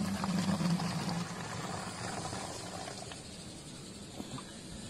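Water running steadily. A low hum in the first second or so fades out, leaving only the water.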